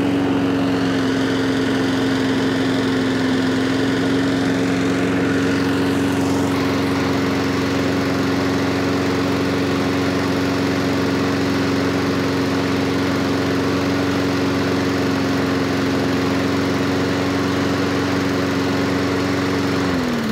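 Honda overhead-cam 160cc single-cylinder engine on a walk-behind lawn mower, running steadily at a constant governed speed, evenly and without misfire after a thorough carburettor clean. Right at the end its speed begins to drop as it runs down.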